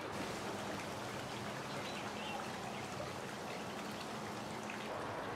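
Steady rushing background noise, like running water, with a faint low hum underneath.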